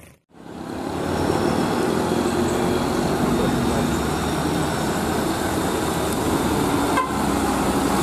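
Diesel engine of a UD Trucks Quester lorry running steadily, with road traffic noise, fading in after a brief dropout at the start. A short horn toot sounds about seven seconds in.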